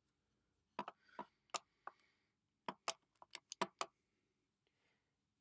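A series of light, sharp clicks, about a dozen in all: five spaced out over a second, then seven in quicker succession.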